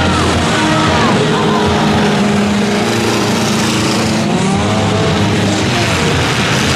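Several full-size derby cars' engines running hard on open headers, their pitch rising and falling as they go round the track.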